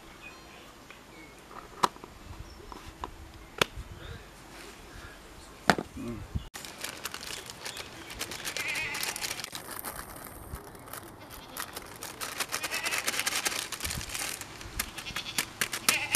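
A few sharp clicks, then a plastic packet crinkling as ragi powder is poured into a steel pot and rubbed in by hand, with animals bleating in the background.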